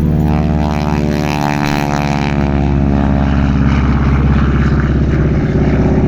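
North American Harvard (T-6 Texan) trainer's Pratt & Whitney R-1340 Wasp nine-cylinder radial engine and propeller running as the aircraft passes, its pitch falling about a second in as it goes by.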